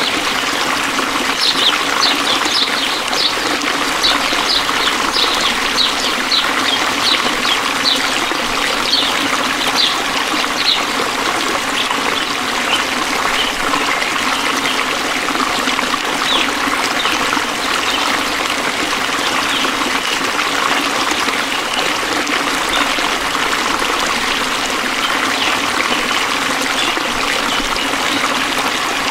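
Steady trickling, flowing water of a stream. Over it come short high chirps from a small animal, about two a second through the first third, then only now and then.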